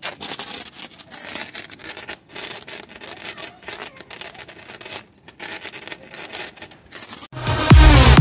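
Irregular, rough crackling hiss with short dropouts. About seven seconds in, loud electronic dance music with a steady beat starts and is the loudest sound.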